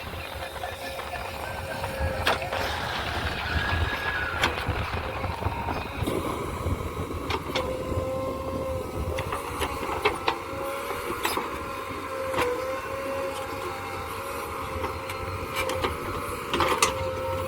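Excavator running and working: a steady engine rumble and whine, with scattered sharp clanks and knocks.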